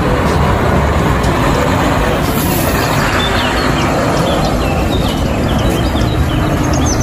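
Steady engine and road noise of a loaded car-carrier truck driving past. Small birds chirp repeatedly from about halfway through.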